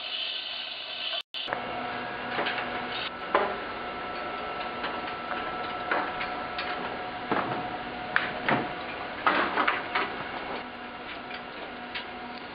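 Irregular clicks and metallic clanks of tools working the mounting bolts on a steel instrument support structure, over a steady hum. The sound cuts out for a moment about a second in.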